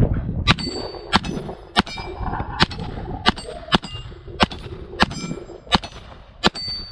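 A .22 LR Glock 44 pistol firing a steady string of about ten shots, roughly one every two-thirds of a second, each hit clanging a steel target that rings briefly afterwards.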